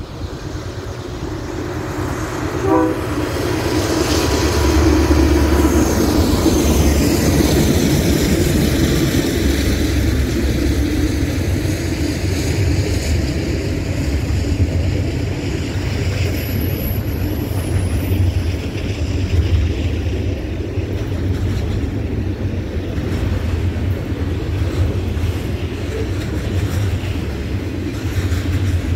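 A CN freight train passing close by: the diesel locomotives' deep engine rumble builds over the first few seconds, with a brief horn note about three seconds in. Then the steady rolling rumble and clatter of double-stack intermodal well cars going by.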